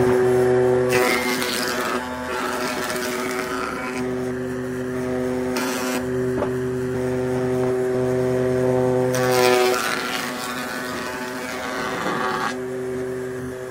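Wood lathe running with a steady motor hum, broken several times by about a second of hissing noise as a tool cuts into the spinning wood.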